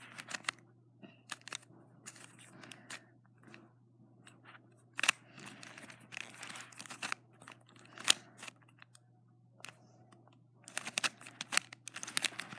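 Plastic clicks and scrapes of a Gear Shift twisty puzzle being turned by hand. The clicks are irregular, with a quicker run of them near the end.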